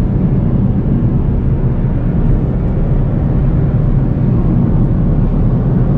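Steady low drone of engine and tyres heard inside the cabin of an Audi A4 2.0 turbo at highway speed, with the car picking up speed.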